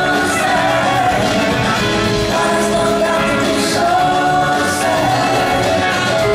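Live blues-rock band playing: electric guitars, keyboards, bass and drums, with singing over the top.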